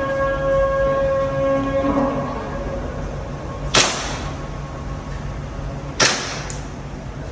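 Two pistol shots on an indoor firing range, a little over two seconds apart, each a sharp crack followed by a brief echo. Before them a steady droning tone fades out about two seconds in.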